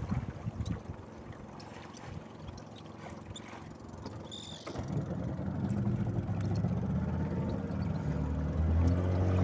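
Fishing boat's engine starting up about halfway through and then running steadily, growing louder toward the end; before it, faint water sounds.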